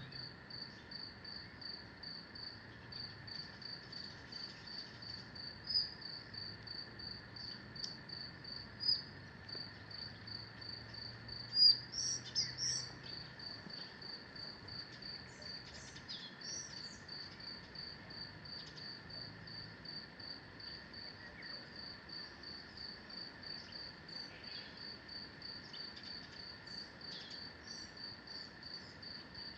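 An insect chirping steadily at about three chirps a second, over a steady background drone, with scattered short bird chirps; the loudest bird call comes about twelve seconds in.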